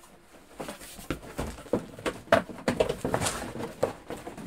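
Irregular rustling and small knocks of objects being handled and moved about on a desk, starting about half a second in.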